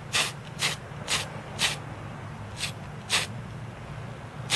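Paint spraying in short, quick hisses, about two a second with a brief pause midway, as light coats of white paint are dusted onto a watch dial.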